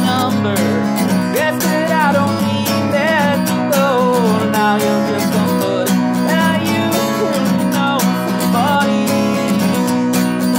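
Steel-string acoustic guitar strummed steadily, playing chords as a song accompaniment.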